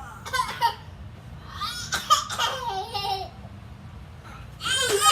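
A small child laughing in several bursts: a short one early, a longer one in the middle and another near the end.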